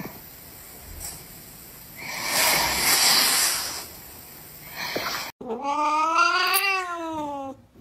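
A loud rushing hiss lasting about two seconds, then a cat meowing in one long drawn-out call that rises and then falls in pitch, a complaint as its claws are being clipped.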